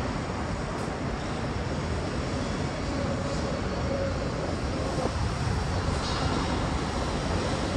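Steady outdoor city rumble with no speech, and a faint steady hum that comes in for a couple of seconds in the middle.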